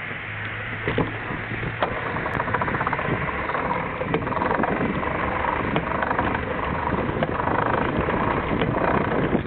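Bike rolling over interlocking brick paving, with a dense rattle of tyres and frame over the joints. There are a couple of sharper knocks about one and two seconds in.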